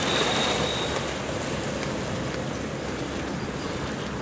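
Water splashing and rushing steadily as a dolphin tows a swimmer through the water, churning up spray. A brief high whistle-like tone sounds at the very start.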